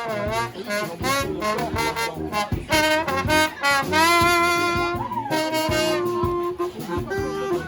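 Street brass band with a heavy trombone section playing a lively horn tune, several horns in harmony over drum hits, with a long held chord about four seconds in.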